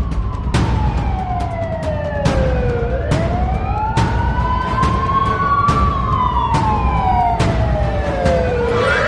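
Police siren wailing slowly, falling, rising and falling again, over a low vehicle rumble, with a sharp hit every second or so.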